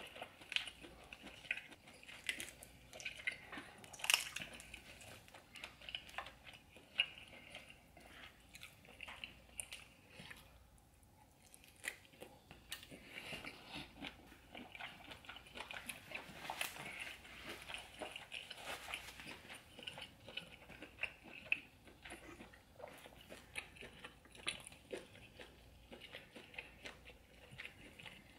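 Close-miked eating: biting and chewing of buttered seafood boil, a run of short sharp mouth clicks and smacks, the loudest about four seconds in.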